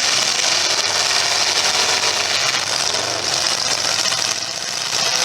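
Engines of demolition derby cars running together in a loud, steady engine din.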